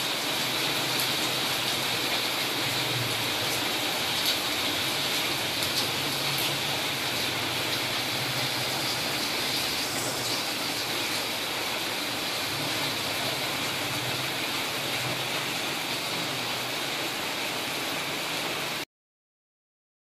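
Heavy rain falling steadily on foliage, concrete and puddles, a constant hiss that cuts off suddenly near the end.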